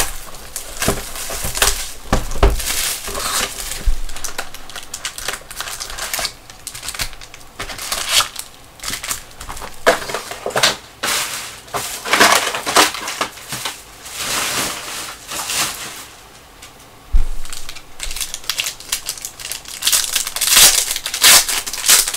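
Crinkling and crackling of packaging as a 2019-20 Panini Prizm basketball card box is opened and its foil packs are handled, ending with a pack wrapper being torn open. The crackles come in irregular clusters, with a quieter spell about two thirds of the way in.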